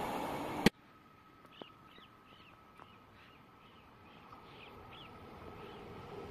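The rumble of a passing train cuts off abruptly with a click about a second in. A bird then gives a series of short chirps, about two or three a second, over a quiet background. Meanwhile the rumble of an approaching express train, hauled by an electric locomotive, slowly grows louder toward the end.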